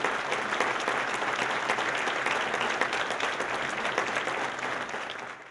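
Audience applauding after a talk, a dense steady clatter of many hands clapping that fades out near the end.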